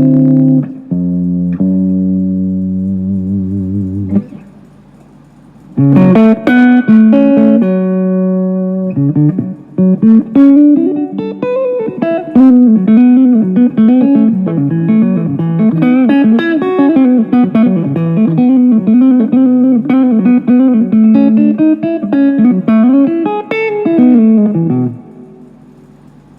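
Guitar played to try out its tone after a setup. Ringing chords first, then a short pause, more chords and a single-note lead line with string bends and vibrato, stopping shortly before the end.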